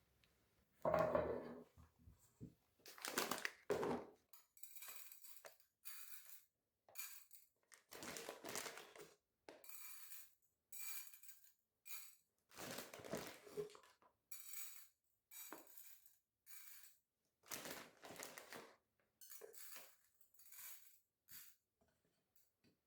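Kitchen items being handled: a run of short clinks, knocks and rustles, one after another, the loudest about a second in.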